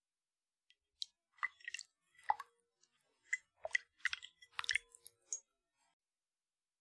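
Irregular small wet clicks and plops of water drops, a dozen or so scattered over a few seconds, some ringing briefly with a short tone.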